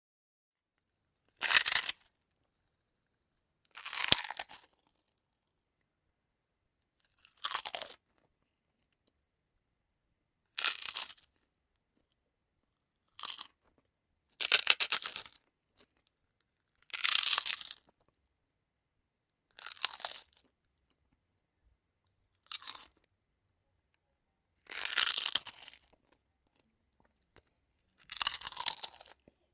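A mouth chewing crunchy food, heard as eleven short bursts of crunching about two to three seconds apart, with silence between them.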